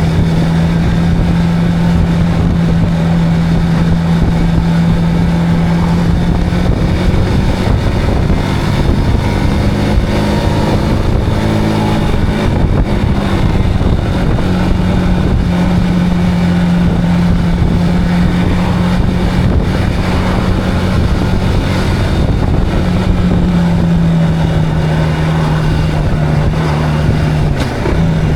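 Zontes cruiser motorcycle engine running at a steady road speed, with wind noise on the microphone. The engine note holds nearly level with small rises and falls, then dips briefly and climbs again near the end.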